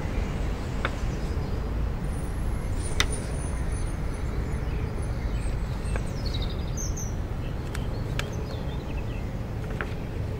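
Outdoor ambience: a steady low rumble with a few short bird chirps about six to seven seconds in and several sharp clicks, the sharpest about three seconds in.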